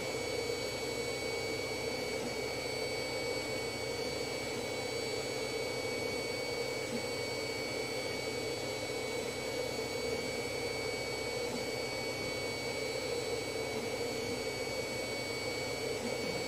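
Steady machine hum with a few faint, thin high-pitched whining tones over it, unchanging.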